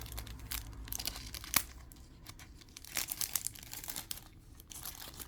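Plastic packaging crinkling and rustling as it is handled, irregular crackles with a few sharper snaps about one and a half and three seconds in.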